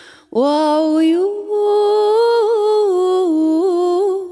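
A woman singing unaccompanied, holding one long wordless note that scoops up into pitch about a third of a second in, then wavers through small ornamental turns until the end.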